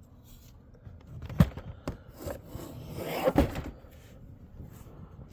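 Plastic door-trim parts being handled and pried: a sharp knock about a second and a half in, a lighter click, then scraping ending in another knock.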